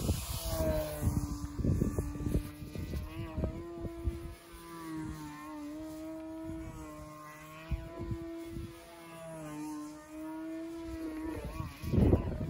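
Control-line stunt model plane's motor running, a steady drone whose pitch wavers up and down slightly as the plane circles and maneuvers. Wind buffets the microphone, most strongly at the start and again near the end.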